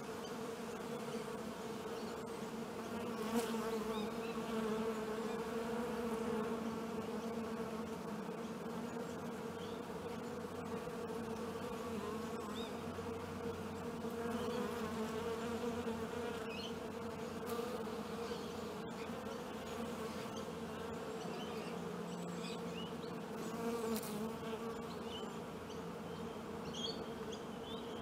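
A honeybee buzzing steadily at close range, a continuous wingbeat hum that wavers slightly in pitch.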